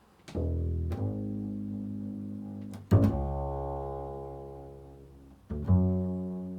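Improvised music on a low-pitched string instrument: four deep notes, each starting sharply and then ringing out and slowly fading, the third the loudest.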